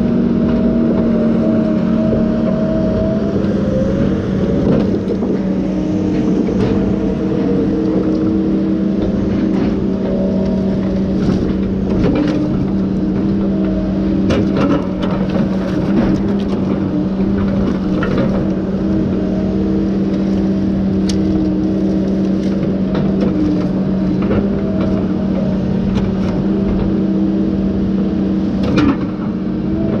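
Tigercat T234 knuckleboom log loader's diesel engine running steadily under hydraulic load as the boom and grapple work, with scattered clunks of logs knocking together in the grapple.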